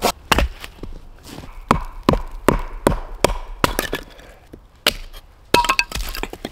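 Hatchet chopping wood: about a dozen sharp, separate strikes, coming two to three a second through the middle, with a quick cluster of blows near the end.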